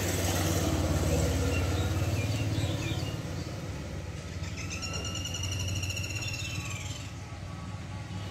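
Bajaj Pulsar 150's single-cylinder engine idling with a steady low rumble. About halfway through, a long high-pitched call sounds over it for about two seconds.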